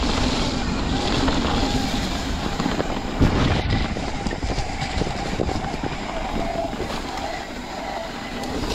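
Mountain bike running fast down a muddy dirt trail: tyres on wet dirt and a constant clatter and rattle of the bike over bumps, with wind buffeting the camera's microphone.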